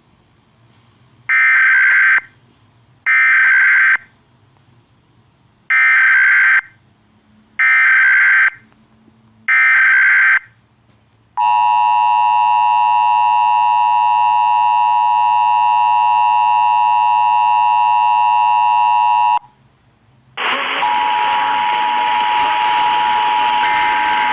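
Emergency Alert System alert: five short screeching digital header bursts, each just under a second and about two seconds apart. Then the steady two-tone attention signal is held for about eight seconds and cuts off abruptly. After a second's pause comes a loud hiss of static with a steady tone running through it.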